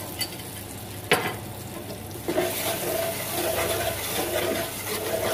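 Garlic-ginger spice paste sizzling as it fries in hot oil in a karahi, stirred and scraped around the pan with a spatula. A sharp knock comes about a second in, and from about two seconds in the sizzle and stirring grow louder.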